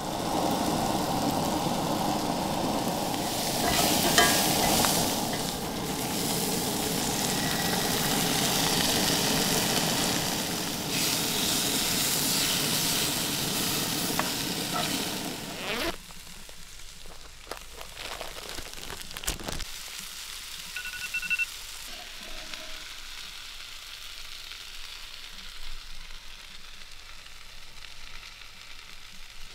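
Potatoes and vegetables sizzling in a cast iron skillet on a camp stove while a fork stirs them. About halfway through the sizzling cuts off abruptly, leaving a quieter stretch with a few clinks of utensils as the hash is spooned onto a tortilla wrap.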